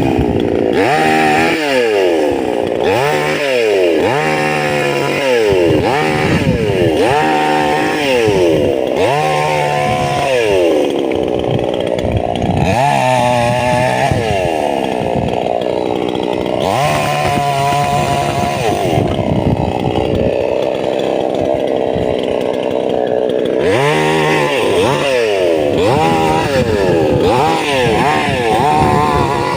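Chainsaw engine revving up and down over and over, held at steady high speed for longer stretches through the middle, as it cuts wood.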